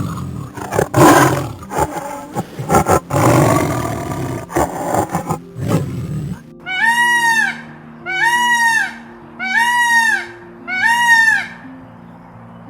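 A big cat roaring for about six seconds. It then gives way to four evenly spaced bird calls, each just under a second long and rising then falling in pitch, over faint background music.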